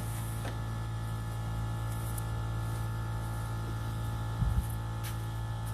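Steady low electrical-type hum, with a short low double thump about four and a half seconds in.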